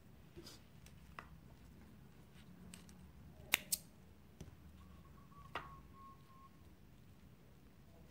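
Small crab-claw snips cutting off leftover nylon beading line: a few sharp snips, the loudest a quick pair about three and a half seconds in, with lighter clicks before and after.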